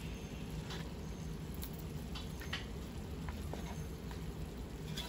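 A spoon turning pieces of fish curry in a wide aluminium pot, with scattered soft scrapes and light crackles from the fish and okra frying in oil and masala, over a steady low hum.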